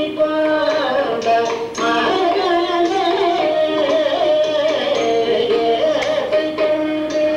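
Recorded Carnatic music accompanying a Bharatanatyam dance: a wavering, gliding melody, most likely a singing voice, over a steady drone.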